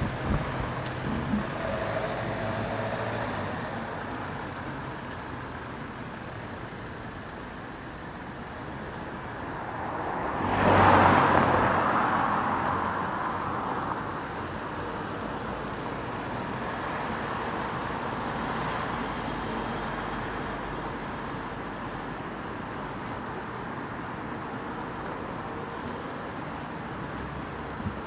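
Road traffic noise along a city street, with one vehicle passing close about ten seconds in, swelling and then fading away; this is the loudest moment.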